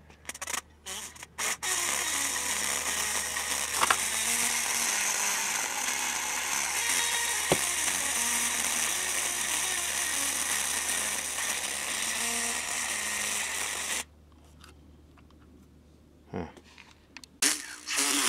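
Vega 404 transistor radio's speaker putting out loud hiss and crackle, cutting in and out at first, then steady. It cuts out about 14 seconds in and crackles back near the end. The repairer takes the speaker for a bad one.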